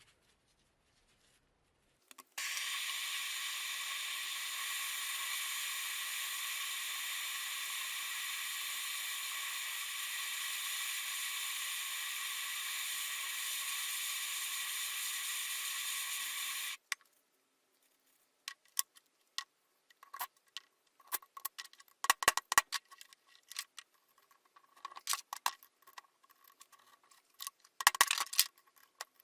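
A steady hiss that starts abruptly and runs for about fourteen seconds before cutting off sharply, followed after a pause by scattered light clinks and taps, some of them ringing briefly, as of metal parts being handled.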